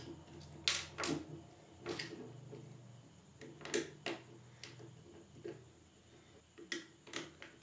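Screwdriver turning a small screw in the plastic top of a Sony SRS-XB10 Bluetooth speaker, giving a string of sharp, irregular clicks and ticks.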